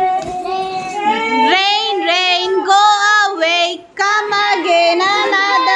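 Young children singing a melody together, with a woman's voice singing along.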